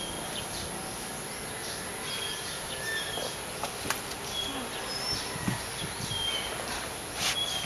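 Garden ambience: short, high bird chirps about once a second over a steady high insect buzz, with a few faint knocks and a brief rustle near the end.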